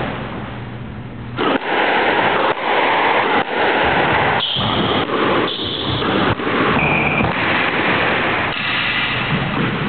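Squash rally: ball struck by rackets and smacking the court walls, with loud echoing hits about every half second to a second starting about a second and a half in. Shoes give short high squeaks on the court floor several times in the middle.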